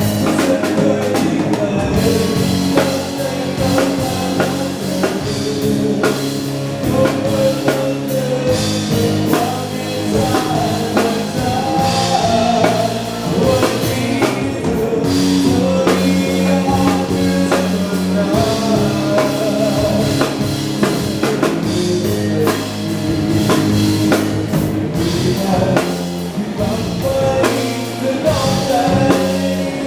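Live band playing an upbeat dance song: drum kit keeping a steady beat under bass and guitar, with a voice singing the melody over it.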